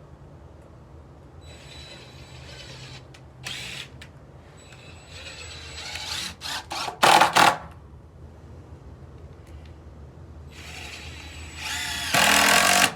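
Power drill running in several short bursts, the loudest near the middle and a longer one near the end, fastening a small log piece so that it holds fast.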